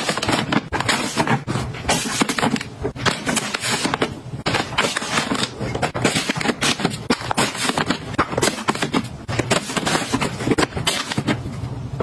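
Plastic pet food pouches crinkling and rustling as they are handled and stood in a row on a shelf, a dense run of crackles and small taps.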